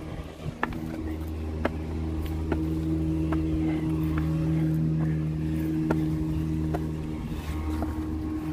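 A steady engine drone with a low hum and several tones over it, growing louder about a second in and easing off near the end. Scattered light clicks and taps are heard over it.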